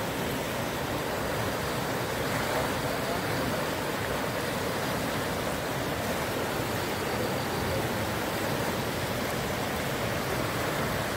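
A swollen river in flood, its fast, churning current rushing steadily.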